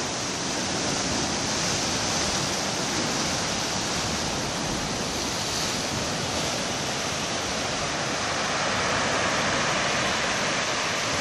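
Ocean swell breaking and washing among the concrete tetrapods of a breakwater: a steady rush of surf that grows a little louder near the end.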